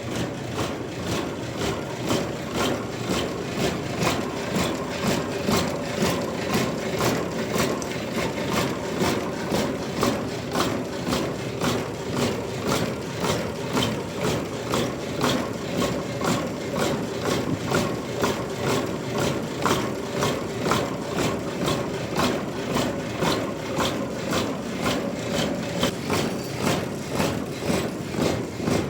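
Engine powering a sawmill, running steadily with an even, rhythmic pulse of a few beats a second.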